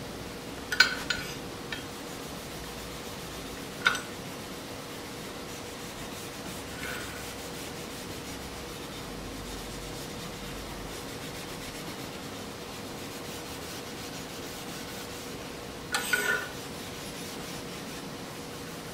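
Steel wool rubbing over the steel of a wood lathe banjo and its clamp bar, scrubbing off dirt and burrs. A few sharp metal clicks break in: two about a second in, one about four seconds in, and a short cluster near the end, the loudest part, over a steady low hum.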